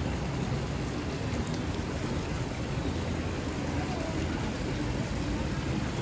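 Heavy rain pouring steadily: a dense, even wash of sound, deepest at the low end.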